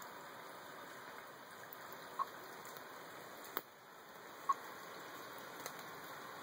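Small spring-fed mountain stream trickling steadily. Over it come short, high beeps about every two seconds, typical of a radio-telemetry receiver picking up a tagged snake's transmitter, and one sharp click about three and a half seconds in.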